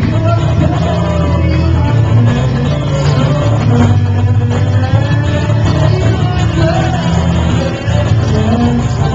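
Music: a voice singing over guitar, with a strong, steady bass underneath.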